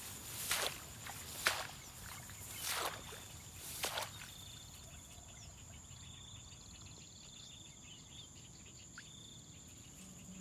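Footsteps swishing through tall grass, four strides in the first four seconds, then insects: a steady high-pitched buzz and a rhythmic pulsed chirping.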